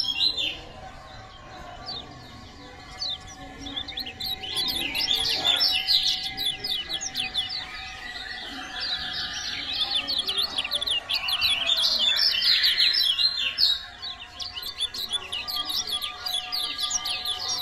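Kecial kuning, a small yellow white-eye, singing a fast twittering song of rapid, high, sweeping chirps in long bursts with short pauses.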